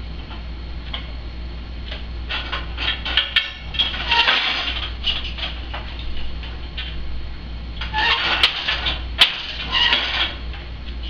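Wooden clicks, knocks and rattles from a countermarch loom being worked by hand as the temple and beater are handled. They come in two busy spells, about two and eight seconds in, with two sharp clicks in the second spell, over a steady low hum.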